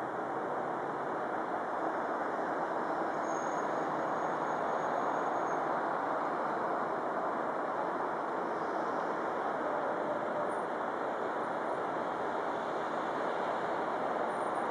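Steady rushing background noise with no distinct events, and a faint thin high tone a few seconds in.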